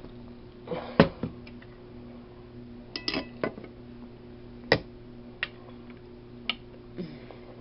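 Eating utensil clinking against a dish, about seven sharp, separate clinks, the loudest about a second in and just before five seconds in, over a steady low hum.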